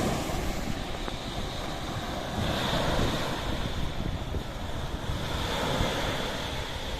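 Sea waves washing in a steady rush, with wind buffeting the microphone and a low rumble. The surf swells a little about two and a half seconds in.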